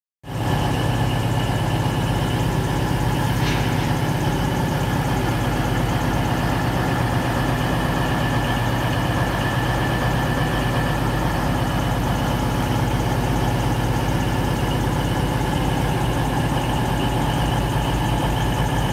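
Diesel passenger train idling at a station platform: a steady low engine hum with constant higher tones above it, and a brief faint high squeal about three and a half seconds in.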